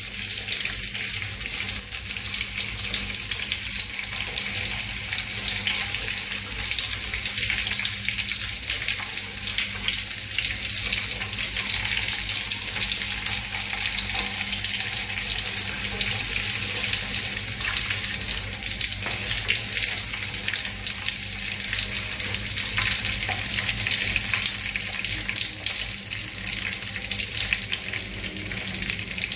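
Hot cooking oil sizzling and crackling steadily in an aluminium wok while being stirred with chopsticks, at the start of frying sliced shallots. A faint low steady hum runs beneath.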